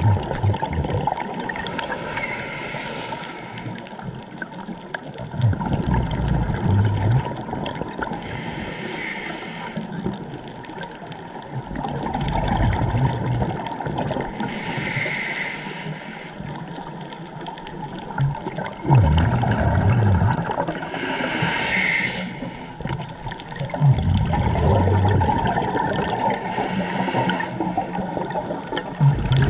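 Scuba diver breathing through a regulator underwater: a short hissing inhale, then a louder low rush of exhaled bubbles, about every six seconds, five breaths in all.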